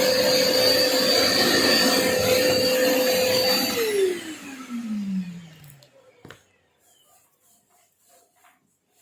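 Construction vacuum cleaner running steadily with a high motor whine, then switched off about four seconds in. Its motor winds down with a falling pitch over about two seconds, followed by a single click and faint rustling.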